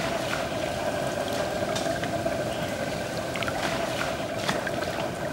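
Steady rush of shallow river water, with several short sharp splashes from toque macaques leaping and playing in it. The clearest splash comes about four and a half seconds in.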